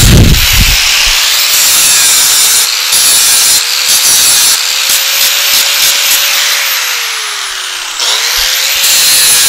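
Electric grinder with a sanding wheel running against steel, smoothing the burred plasma-cut edges of metal brackets clamped together. The motor's pitch and level sag for about a second and a half near the end, then pick straight back up.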